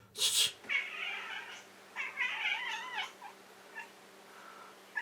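Domestic cat meowing: two drawn-out, wavering meows of about a second each, after a short noisy burst at the start.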